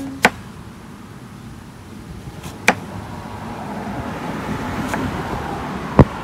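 Three sharp knocks while breadfruit is being cut up and handled, the loudest near the end, with a soft rustling and scraping that builds between them.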